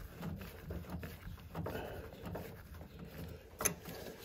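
Gloved hands working a brass tub drain pipe at its slip-nut joint: low, irregular rustling and scraping, with one sharp click a little before the end.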